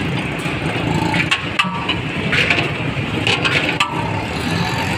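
Busy street noise with traffic running steadily, broken by several sharp clicks and clinks, some with a brief metallic ring.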